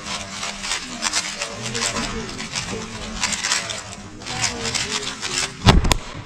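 Gan 12 Maglev speedcube turned at full speed, a fast irregular run of plastic clicks and rattles. Near the end come two loud slaps of hands on a Speedstacks timer pad, stopping the timer as the solve finishes.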